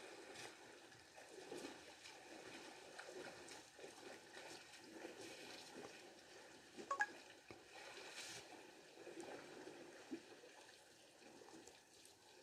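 Faint splashing and trickling of water as a herd of elephants wades and drinks in a shallow waterhole, with a couple of sharp clicks about seven seconds in.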